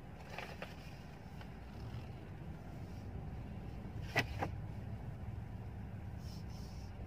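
Mercedes-Benz S-Class sedan moving slowly, heard from inside the cabin as a low, steady hum. Two sharp clicks come about four seconds in.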